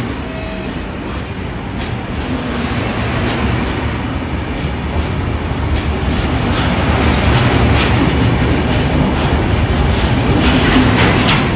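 Shatabdi Express passenger coaches rolling past close by as the train comes into the platform: a steady low rumble of wheels on rail with repeated sharp clacks, growing louder through the second half.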